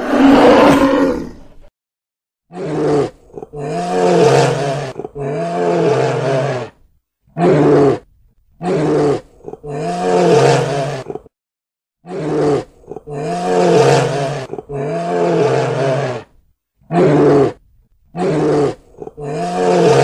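Brown bears roaring as they wrestle: one long roar at the start, then about a dozen shorter roars, each half a second to two seconds long, with short pauses between.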